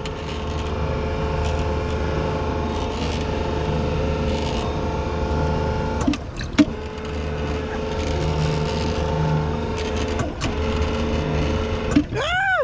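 Bumper boat's small motor running steadily with a constant hum, dipping briefly twice with a few knocks. Near the end a short sound rises and falls in pitch.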